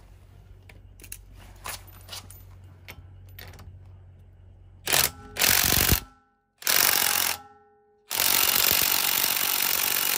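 14-volt cordless impact wrench hammering on a car's wheel lug nut in four bursts starting about five seconds in, the last and longest running a couple of seconds, after some light clicks as the socket is fitted. The tool is not strong enough to break loose the nut, which is torqued to 120 N·m.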